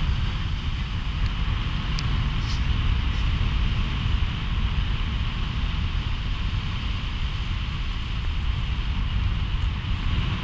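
Steady road and wind noise from a car driving on a wet road: low rumble on the microphone under a hiss of tyres on wet pavement, with a few faint ticks between one and three seconds in.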